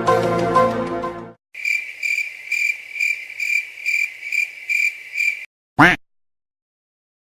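Cricket chirping sound effect, the comedy 'awkward silence' cue: about nine even, high chirps, roughly two a second, starting after a music clip cuts off just over a second in. A brief sweeping sound follows near the end.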